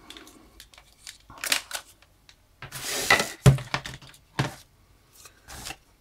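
Handling noise: rustling of a fabric storage bag and clicks and knocks of hard plastic vacuum attachments being picked up and set down. The loudest knock comes about three and a half seconds in, with another about a second later.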